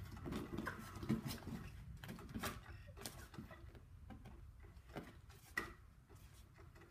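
Scattered light taps and rustles of a cat batting at a motorized cat toy, whose wand moves under a fabric cover, over a faint low hum.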